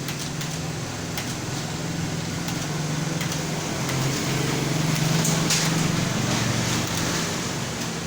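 Computer keyboard keys clicking irregularly as someone types, over a steady low hum from a fan or air conditioner.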